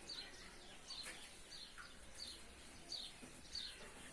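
Faint bird chirping: one short, high, falling chirp repeated about every two-thirds of a second over low background noise.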